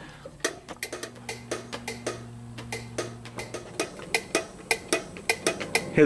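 Water-level pressure switch of a GE top-loading washing machine popping as air is blown into its hose: an irregular string of sharp clicks, several a second. It is the switch tripping under the air pressure, the switch that tells the washer when to stop filling and when to drain.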